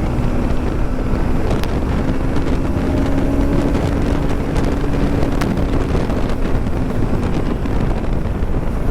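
Motorcycle riding at highway speed, a Bajaj Pulsar NS200: steady wind roar on the helmet-mounted mic over the engine's drone, with a steady engine hum that fades out near the end.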